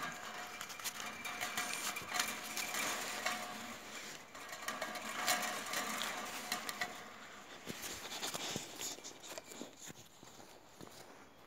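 A dog's paws scratching and digging in crunchy snow at a rubber ball, a dense run of crunches and scrapes that thins out and quietens after about seven seconds.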